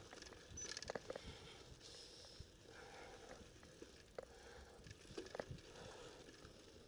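Faint sound of a mountain bike rolling down a rocky dirt trail: tyres on loose dirt and gravel, with sharp knocks and rattles from the bike over bumps, a cluster about a second in and a few more around four to five seconds in.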